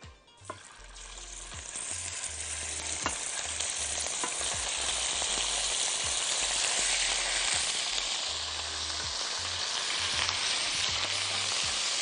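Small cubes of raw beef searing in a nonstick pan heated until it smokes: a sizzle that builds up over the first couple of seconds as the meat goes in, then holds steady. A few sharp clicks stand out over it in the first half.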